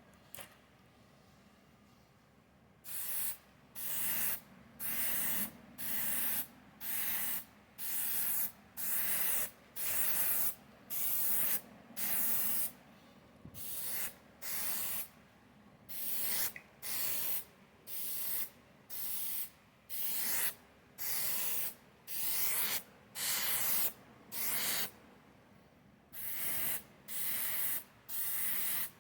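Aerosol spray paint can being sprayed in short, evenly spaced bursts, about one and a half a second, starting about three seconds in, with a brief pause near the end.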